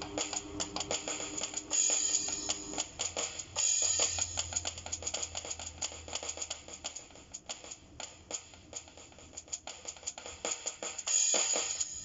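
Electronic drum-kit sounds triggered by PocketDrum air drumsticks: a busy hi-hat pattern with bass drum and cymbal hits in an improvised beat, louder around two seconds in and near the end. A washing machine's steady hum runs beneath for the first few seconds, then a lower hum.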